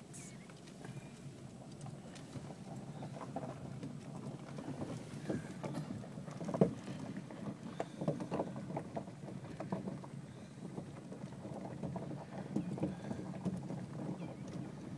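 A car on the move, heard from inside the cabin: a steady low rumble of tyres and engine, with scattered small crackles and knocks that grow a little busier from about four seconds in.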